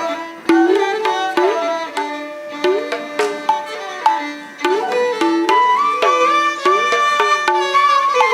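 Carnatic-style instrumental music for Bharatanatyam dance: a stringed instrument plays a melody of gliding, ornamented notes over frequent hand-drum strokes.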